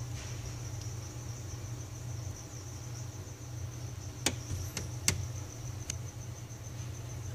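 A cricket chirping in a steady, finely pulsed high trill over a low steady hum. A few sharp clicks come about four to six seconds in.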